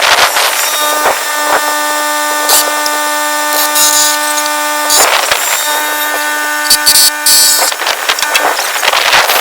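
Power drill motor running steadily for most of several seconds, with short knocks and clicks around it.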